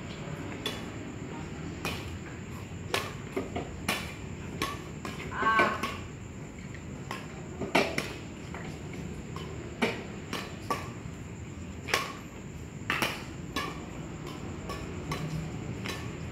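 Badminton rackets striking a shuttlecock during a rally: a string of sharp smacks, roughly one a second and unevenly spaced. A loud drawn-out call rings out about five and a half seconds in.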